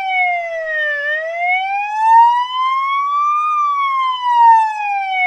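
Electronic police siren in a slow wail: one clean tone falling to its lowest about a second in, rising steadily to a peak about three and a half seconds in, then falling again, a rise-and-fall cycle of about five seconds.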